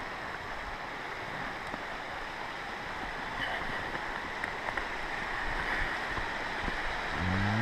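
Steady rush of a mountain creek. Near the end a cow starts a low moo that rises in pitch.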